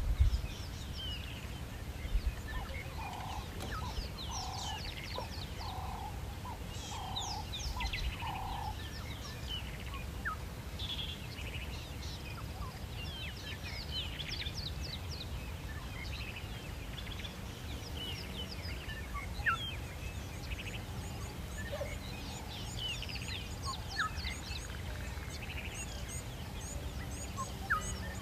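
Wild birds chirping and calling, many short high chirps throughout, with a run of six short low notes about a second apart a few seconds in. A steady low rumble runs underneath.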